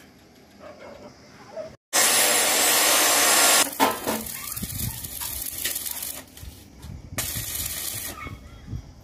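Stick-welding arc sizzling on a mild-steel staircase tread as the electrode burns. It comes as a loud, steady hiss about two seconds in that lasts under two seconds, rougher crackle after it, and a second, shorter hiss near the end.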